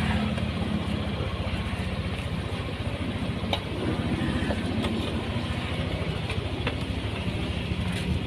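Yamaha Aerox 155's single-cylinder, four-valve engine idling steadily at about 1500 rpm, running smooth with no rattle now that the worn camshaft bearing in the cylinder head has been replaced. A few faint clicks are heard over it.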